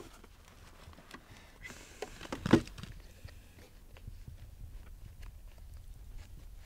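Faint rustling and small clicks of hockey skates being laced up, with one louder knock about two and a half seconds in.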